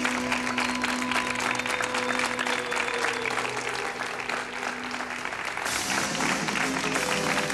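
Audience applauding over music with long held notes.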